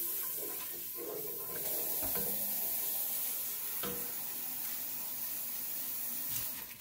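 Steady sizzling hiss from a pot of aromatics cooking on the stove as a wooden spoon stirs them, with a couple of light knocks of the spoon against the pot.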